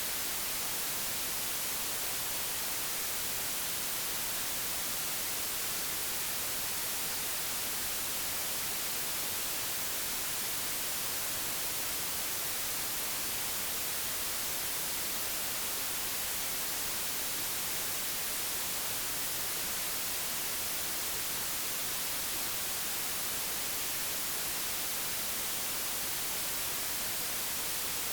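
Digitally generated white noise: a steady, even hiss with no change, stronger in the treble.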